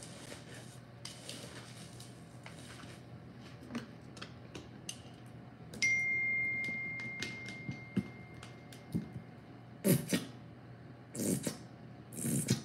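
Faint squishing and clicking of gloved hands mixing raw ground meat in a plastic bowl. About six seconds in, a single clear chime sounds and fades away over about three seconds. Near the end, a few sharp rattling shakes of a seasoning bottle over the bowl.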